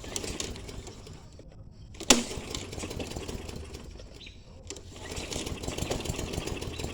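Murray self-propelled 22-inch lawn mower's engine running, a steady low hum with a fast rattle, with one sharp click about two seconds in.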